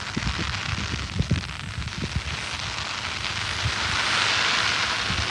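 A firework hissing and spraying steadily, the hiss swelling about four seconds in, with soft low pops scattered through the first two seconds or so.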